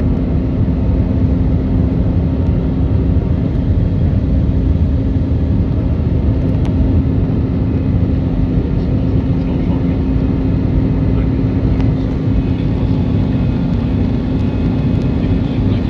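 Steady cabin noise of an Airbus A320 climbing after takeoff: engine drone and rushing airflow, with a steady low hum running under it.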